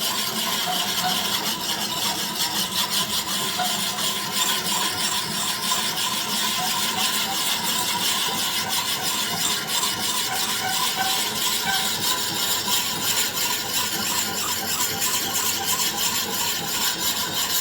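The coarse side of an oiled combination sharpening stone rubbed back and forth along the bevel of a steel lawnmower blade, a steady scraping with no pauses. It is the coarse honing stage that raises the new edge.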